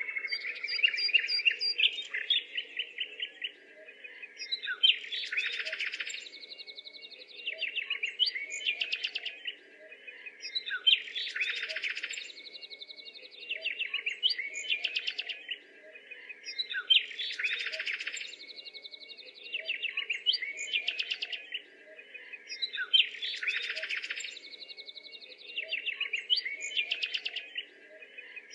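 Birds chirping and trilling: a phrase of rapid twitters and a buzzy trill repeats about every six seconds, over a faint steady low hum.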